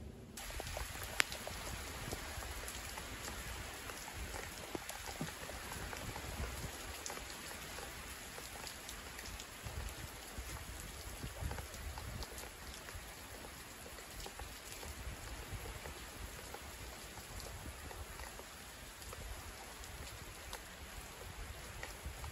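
Steady rain falling, an even hiss sprinkled with many small drop ticks, with one sharp click about a second in.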